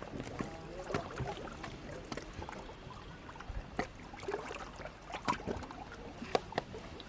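Small sea waves sloshing in and out of holes in shoreline rock, with scattered short clicks. The air forced out of the holes makes a whooshing sound like a person breathing.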